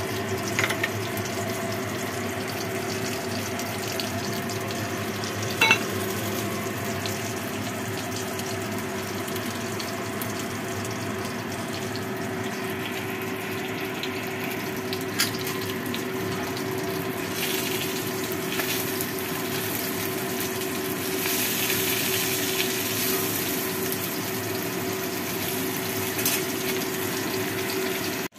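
Steady kitchen hum with a constant low tone throughout, broken by a few sharp clinks. From about halfway through, a hissing sizzle joins in as fish pieces fry in a wok.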